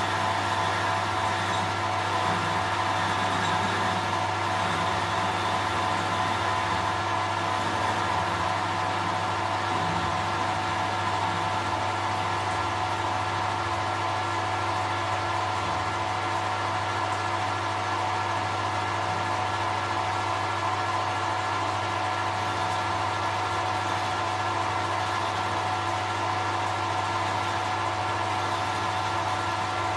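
Metal lathe running steadily with a hum and several even tones from its motor and drive, the workpiece turning in the chuck while a facing cut is fed by hand on the cross slide.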